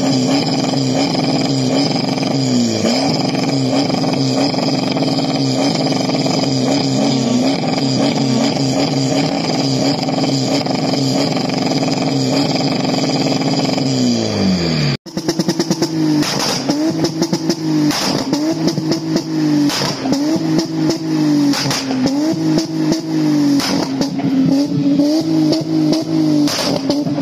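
Exhaust of a Mk5 Volkswagen Golf with quad tailpipes, its engine running at idle with a steady note. About fifteen seconds in it cuts off abruptly and a Lexus IS200's exhaust takes over at idle, its note rising and falling regularly, with clicks over it.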